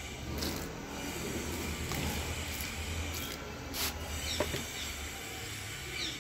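Water poured from a plastic container onto soil-covered kitchen waste in a bucket, a soft hissing trickle over the first few seconds, followed by a few light knocks.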